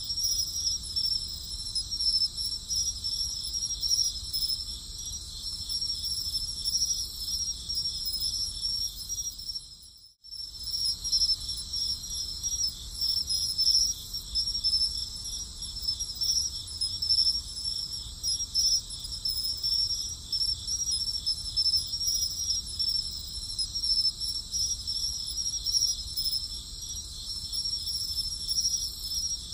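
Chorus of crickets chirping steadily, a dense high-pitched trill. It fades out briefly and comes back about ten seconds in.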